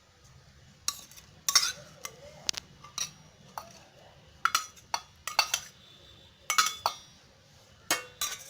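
A spoon clinking and tapping against dishes and a container as ingredients are spooned in: a dozen or so sharp clinks with short ringing, coming in irregular clusters.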